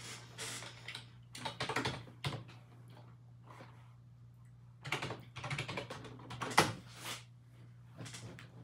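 Typing on a computer keyboard: two bursts of key clicks with a pause of about two seconds between them.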